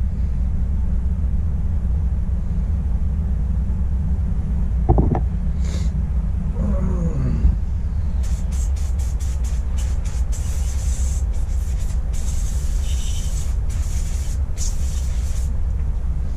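Repeated short hissing bursts from a spray or air nozzle, starting about eight seconds in and going on for some seven seconds, over a steady low hum.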